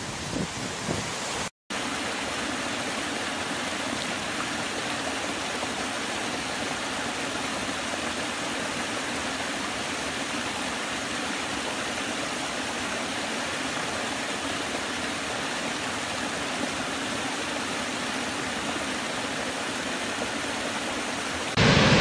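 Water of a forest stream pouring over small stepped rock cascades: an even, steady rush. In the first second or so wind buffets the microphone over rushing water, then the sound cuts out briefly. Near the end a much louder, deeper waterfall roar comes in.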